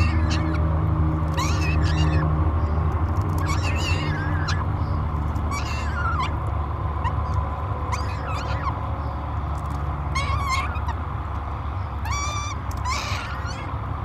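Peregrine falcon chick begging while being fed: short, high, pitched calls repeated every second or two, some falling in pitch, over a steady low rumble.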